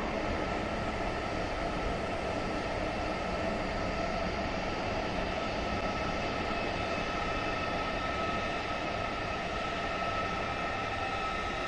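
ICE high-speed train rolling slowly along a far platform: a steady electric hum with a few held whining tones that grow stronger in the second half.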